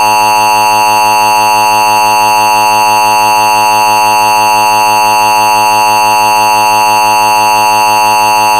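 Emergency Alert System attention signal: a loud, unbroken two-tone alert tone held steady at one pitch.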